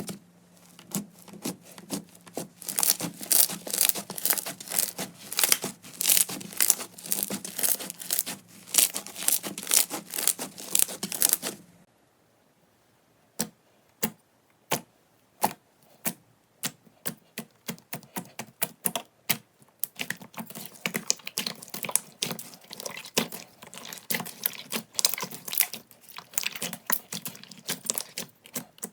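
Slime being pressed and stretched by hand, giving dense crackling pops and clicks. Near the middle it cuts to a quieter stretch of a few separate pops, which build back into steady crackling.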